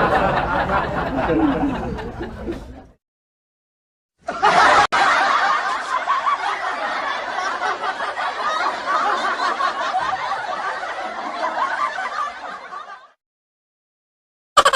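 Laughter sound effects played back to back. One laugh trails off about three seconds in, and after a gap of about a second a longer, dense stretch of laughter runs for about nine seconds and then stops. A new laugh with rapid, even pulses starts right at the end.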